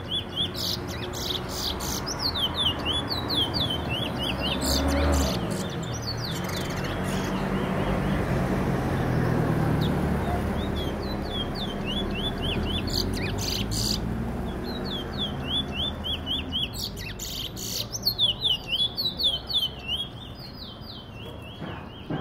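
Caged male Trinidad bullfinch (a black seed finch) singing. It gives several bursts of rapid, repeated high chirping notes separated by short pauses. A low rumble swells and fades in the middle.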